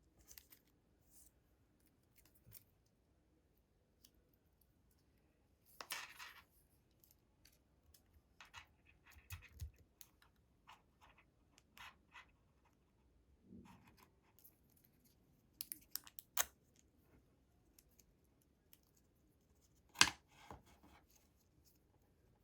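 Hands handling a watch and its packaging at close range: scattered light clicks, taps and scrapes. There is a short rustle about six seconds in and a sharp click near the end.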